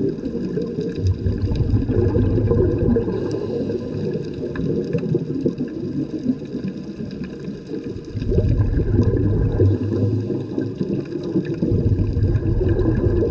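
Underwater ambience picked up by a submerged camera: a steady low rumble of moving water that swells and eases every few seconds, with a few faint clicks.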